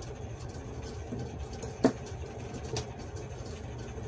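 Scissors snipping at embroidery thread: one sharp click about two seconds in and a softer one about a second later, over a steady low hum.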